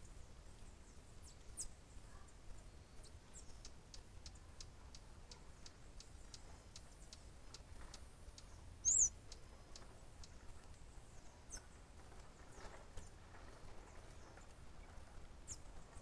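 Faint, high, thin bird calls: single short downslurred notes scattered through, a run of quick chips at about three a second, and one loud, sharp double note about nine seconds in.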